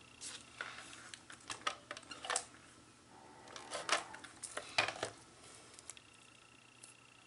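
Scattered light clicks and taps of scrapbooking supplies being handled on a craft table, in two clusters, quieter near the end.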